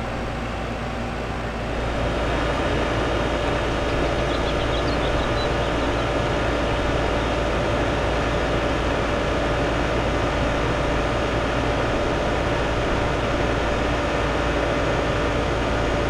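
Trane XR1000 central-air outdoor condensing unit running: a steady hum of the compressor and condenser fan, with several steady tones over it, a little louder from about two seconds in. The unit is running while being recharged with R-22 refrigerant after being found undercharged.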